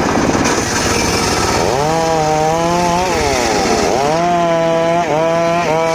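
Homemade circular saw cutting mahogany: a loud steady running noise with a pitched whine that holds, then dips in pitch and recovers several times as the blade bites into the wood and frees up.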